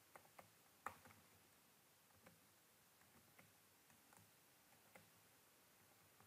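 Faint computer keyboard keystrokes typed slowly, single key clicks spaced irregularly, the loudest about a second in, over near-silent room tone.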